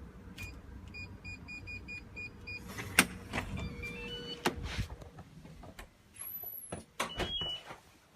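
Digital door lock being opened: a series of short keypad beeps as the code is entered, a sharp clack about three seconds in, then a short rising chime. Knocks and clatter of the door follow, with brief beeps near the end.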